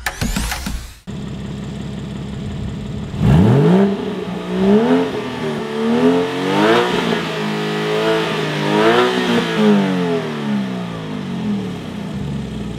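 Porsche flat-six with a Soul Performance exhaust, valves closed, revved while standing still: it idles for a couple of seconds, then climbs sharply toward the redline and is held high through several rises and falls in pitch, before dropping back to idle near the end.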